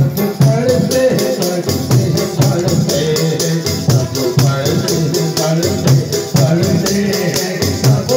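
Qawwali music playing: hand drums and a steady, quick beat of sharp high percussion, about four strokes a second, under pitched melodic lines.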